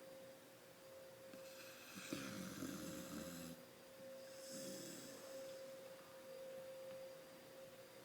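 A sleeping dog snoring: two rasping snores a second or so long, about two seconds apart, over a steady high hum.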